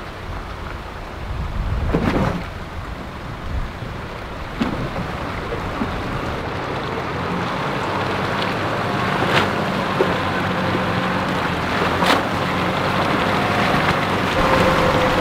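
A 4WD ute's engine running as it drives through a shallow rocky river, with water splashing and rushing around the tyres. A few sharp knocks break through, about four in all.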